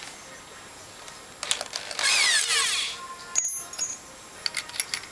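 Metal tools and parts being handled on a workbench: scattered sharp clicks and knocks, with a loud harsh rasping burst lasting under a second about two seconds in.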